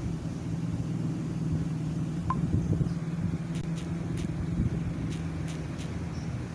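Light taps of typing on a phone's touchscreen keyboard, several short clicks from about halfway in, over a steady low mechanical hum. There is a single short beep a little over two seconds in.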